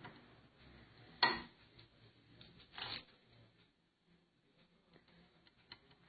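Kitchen utensil knocks during food preparation: one sharp knock about a second in, a softer knock near three seconds, then a few faint light ticks.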